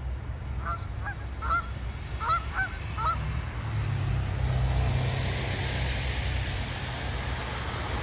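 Canada geese giving a quick series of short honks over the first three seconds. Then the noise of a passing car swells up, loudest around the middle, and lingers.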